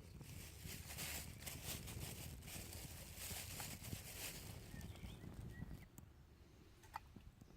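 Rustling for the first four and a half seconds over a steady low rumble of wind on the microphone, with a few faint bird chirps and a couple of light clicks near the end.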